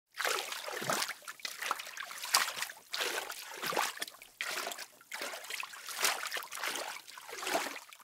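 Water splashing in a shallow pool: an uneven, rapid run of splashes, some louder than others.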